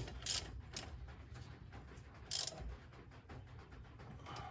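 Hand ratchet wrench clicking in a few short runs as bolts are drawn up by hand to seat a new final drive, with a brief burst of clicks about two and a half seconds in.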